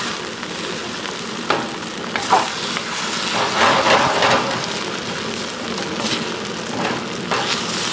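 Fried rice with pineapple sizzling steadily in a heavy outdoor wok, with several scrapes and clinks from the stirring at irregular moments. The rice is near the end of frying and is nearly dried out.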